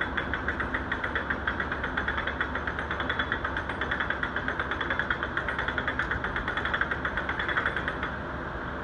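Canal narrowboat's diesel engine chugging with a fast, even beat as the boat goes by, dropping away near the end.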